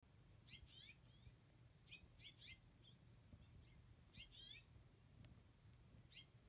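House finches calling: faint, short chirps in quick clusters of three or four, each cluster coming every second or two.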